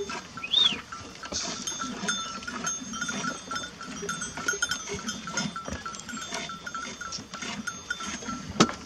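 Bells on a flock of sheep and goats clinking irregularly. A short high chirp comes about half a second in.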